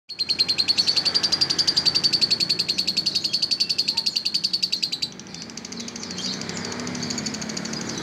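Lovebird chattering in a long, rapid, even trill of about a dozen notes a second that breaks off suddenly about five seconds in, followed by quieter, higher twittering.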